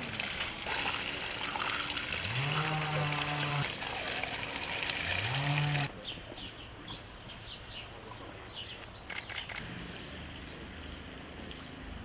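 Water spraying from a garden hose onto a pony's coat, with two low, drawn-out calls over it. About six seconds in, the spray cuts off, leaving quieter outdoor ambience with faint short chirps and a few clicks.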